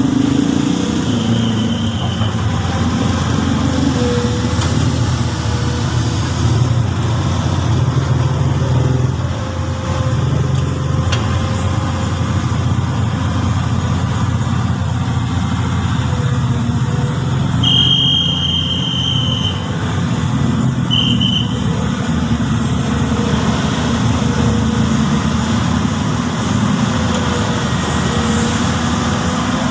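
Komatsu PC200 hydraulic excavator's diesel engine running as the machine works, its low drone wavering up and down. A few short high-pitched tones sound over it, one near the start and two more past the middle.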